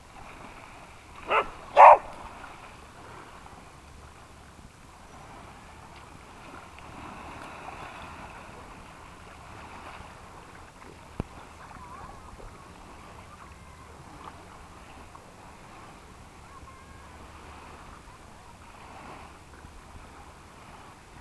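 A dog barks twice in quick succession a second or two in, followed by a steady sloshing and splashing of water as dogs swim and paddle.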